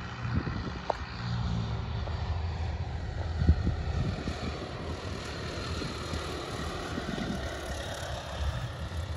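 Single-engine Piper PA-28's piston engine and propeller running steadily as the plane comes in to land, with wind rumbling on the microphone.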